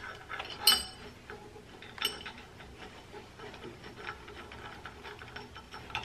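A few light metallic clicks and ticks as a screwdriver turns the small clamp screw on a steel grinding jig fixed to the knife blank. The two clearest clicks come a little under a second in and about two seconds in, with fainter ticks after them.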